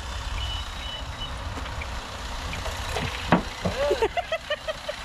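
Steady low rumble of cars moving through a parking lot. A few faint high beeps sound in the first second. About three seconds in, a person's voice calls out, then breaks into a quick run of short yelps.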